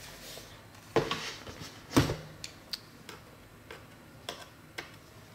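A Dell Inspiron laptop is set down on a desk with two loud knocks about a second apart. A few small sharp ticks follow as a small Phillips screwdriver works the screws on its underside.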